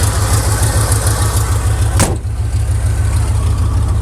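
A 350 Oldsmobile Rocket V8 idling with a steady low pulsing beat. One sharp click sounds about halfway through.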